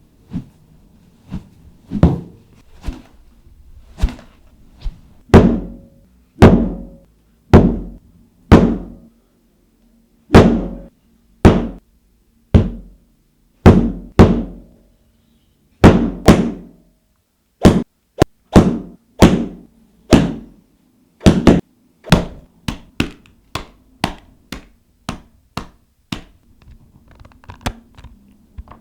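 A run of separate thuds and knocks on something solid, about one a second at first and coming quicker, several a second, in the last few seconds; some strikes leave a short low ring.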